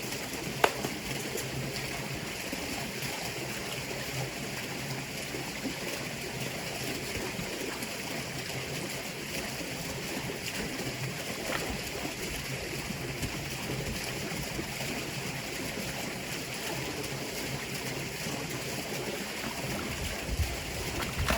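A steady rushing noise with one sharp click about half a second in.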